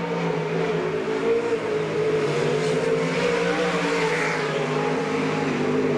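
Winged sprint car's 410-cubic-inch V8 engine running hard as the car laps the dirt oval alone on a time-trial run, its pitch wavering slightly.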